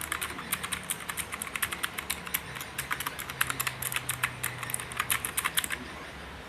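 Rapid typing on an Aula mechanical gaming keyboard with clicky blue switches: a quick run of sharp key clicks that stops near the end, leaving a faint low hum.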